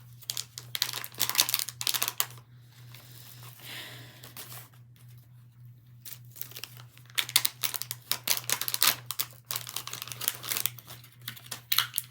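Plastic and paper toy packaging crinkling and tearing as a blind-pack figure is unwrapped, in two spells of rustling with a quieter pause between.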